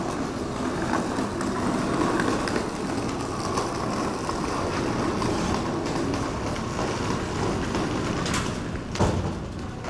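Steady, rumbling background noise of a large stone-walled building lobby, with a single sharp knock about nine seconds in.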